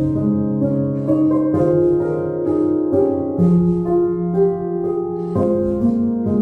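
Instrumental piano music: a slow melody of held notes over changing chords.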